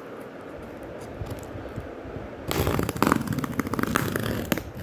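Plastic wrap and packing tape on a cardboard box being cut and torn open with a knife: quiet scraping at first, then about halfway in about two seconds of loud, dense crackling and tearing.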